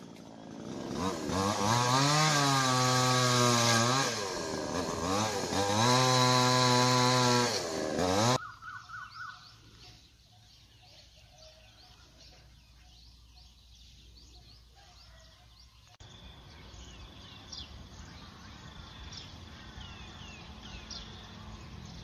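Chainsaw revving up and holding at high revs twice for about eight seconds, then cutting off suddenly. Faint bird chirps follow.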